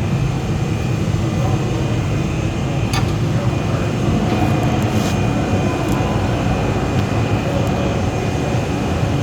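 Lathe running steadily: a low machine hum with a thin, steady high whine and a couple of faint clicks.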